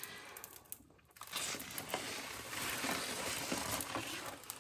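Clear plastic protective film on a diamond painting canvas crinkling as the canvas is handled, a steady rustle that starts about a second in.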